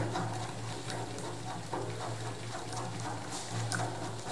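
Faint, scattered metallic clicks and ticks of a hand tool turning the bolt on top of a GDI spray gun's mixing head, over a steady low hum.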